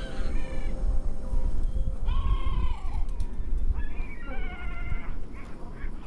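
Birds calling: about four drawn-out, harsh calls, each well under a second, over a steady low rumble.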